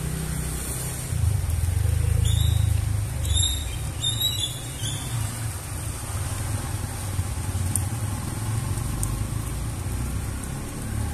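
Rain falling on pavement, under a low rumble that swells about a second in and eases off after about three seconds. A few short high chirps come between two and five seconds in.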